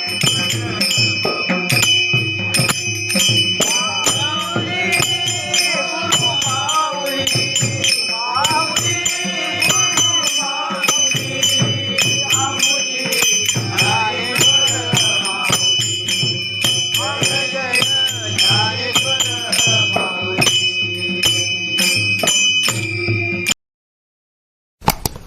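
Marathi devotional bhajan: a sung vocal line over a steady drone, with metal jingles striking a quick, even beat. The music cuts off suddenly near the end.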